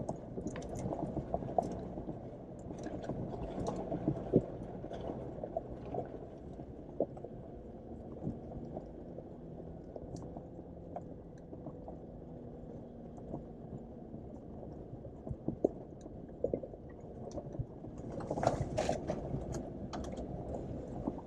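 Jeep Wrangler JL crawling slowly over a rough off-road trail, heard from inside the cabin: a low drone from the engine and tyres with scattered knocks and rattles from the body and suspension. The knocks come thicker for a couple of seconds near the end.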